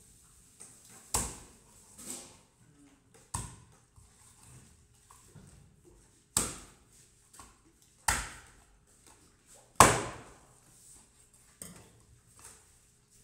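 A large cleaver chopping through a giant rohu fish onto a wooden chopping block: about five heavy chopping thuds a second or two apart, with a couple of lighter knocks between them, the loudest stroke about three-quarters of the way through.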